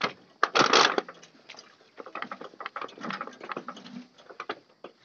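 Knife scraping the charred skin of a singed pig carcass in quick, uneven strokes while water is splashed over it from a mug. The loudest stretch of scraping comes about half a second in.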